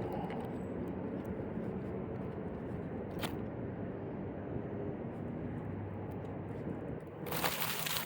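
Steady low background noise, with a sharp click about three seconds in and a louder rustling or scraping burst near the end.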